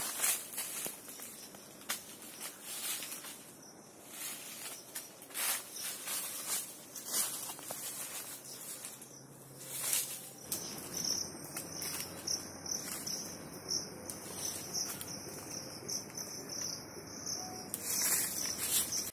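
An insect calling, a high buzz pulsing about twice a second, from about halfway through until just before the end. Scattered light clicks and rustles come and go over it.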